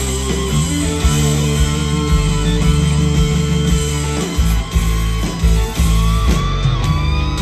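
Live rock band playing an instrumental passage: electric guitar over bass and drums, with guitar notes bending upward near the end.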